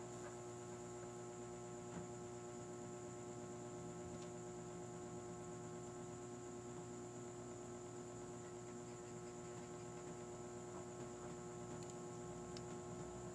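Steady electrical mains hum made of several fixed tones, with a few faint clicks.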